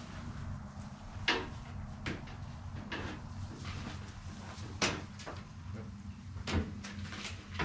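Round hay bale being shoved back along a tilting steel utility trailer: about half a dozen sharp knocks and clunks, the loudest about a second in and near the middle, over a steady low hum.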